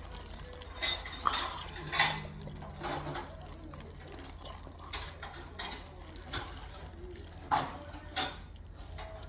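Dishes and cutlery clinking and knocking at a meal table: about eight separate sharp clinks, the loudest about two seconds in.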